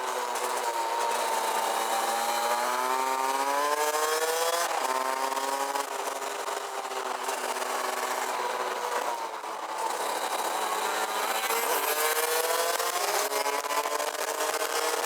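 Rotax Max DD2 125 cc single-cylinder two-stroke kart engine at racing speed: the revs climb steadily, fall back sharply about five seconds in and again around nine and twelve seconds, then climb again. A hiss of wind on the microphone runs underneath.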